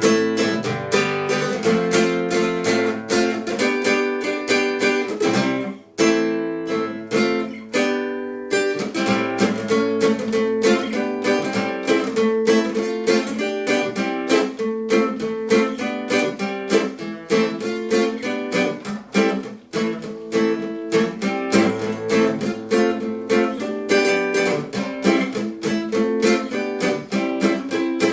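Instrumental music: an acoustic plucked string instrument strummed in a quick, steady rhythm. About six seconds in, the strumming thins out for a couple of seconds before the full strumming picks up again.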